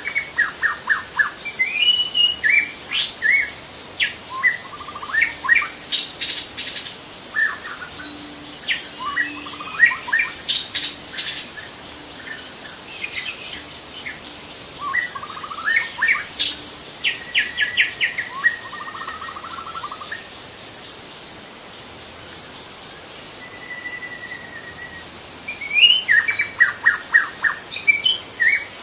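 Wild white-rumped shama singing: varied, rich whistled phrases with quick rattling trills, livelier near the start and again near the end. A steady high insect drone runs underneath.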